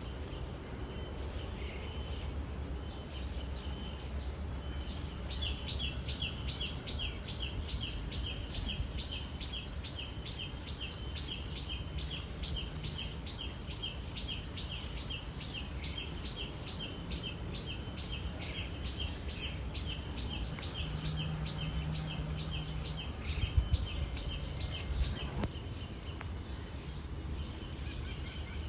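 Cicadas droning in a steady, high-pitched band. From about five seconds in until near the end, a bird repeats a short note about three times a second.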